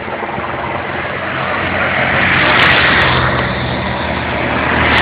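Motor vehicles of the race convoy driving past on the road: a steady engine hum under a rushing noise that swells to its loudest about halfway through and again near the end.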